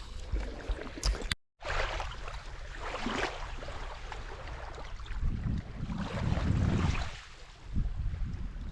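Lake Michigan waves washing onto a pebble shore, with wind buffeting the microphone. The wind gusts are strongest in the second half. There is a brief total dropout about a second and a half in.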